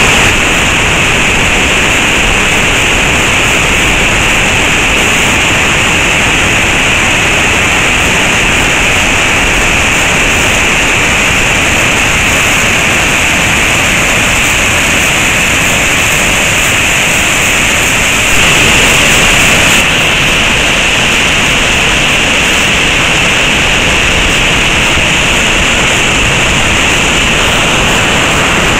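A tall waterfall and its cascades over rocks, a loud, steady rush of falling water that gets briefly louder about two-thirds of the way through.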